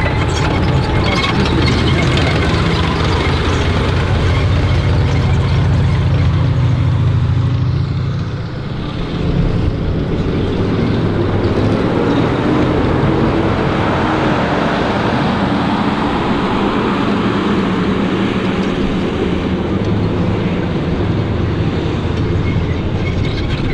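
Armored vehicles driving close past: an M18 Hellcat tank destroyer's radial engine and steel tracks running loud for the first several seconds, then, after a short dip about eight seconds in, a wheeled armored car's engine rumbling by.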